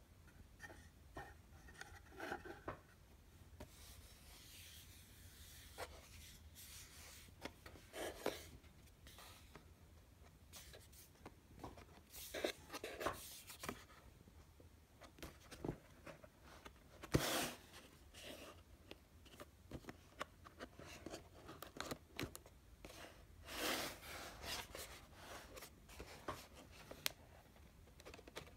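Hands handling a tablet in its cardboard box: scattered rubs, scrapes and light taps of fingers on the cardboard and the tablet's film-covered screen, with one sharper click about seventeen seconds in.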